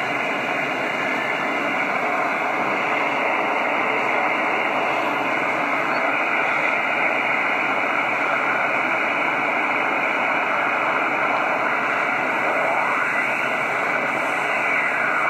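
Steady hiss of 40-metre band noise from an Elecraft KX3 receiver on lower sideband, with no station transmitting, limited to the narrow range of the SSB filter. A faint whistle slides in pitch near the end.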